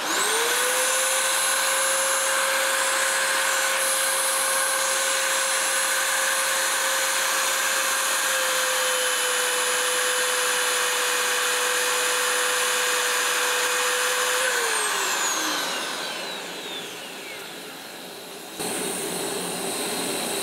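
Milwaukee magnetic drill's motor spinning up with a rising whine, then running at a steady pitch as its annular cutter bores a hole through steel under a mist of cutting fluid. About three-quarters of the way through it is switched off and winds down with a falling pitch, and a steady hiss comes in near the end.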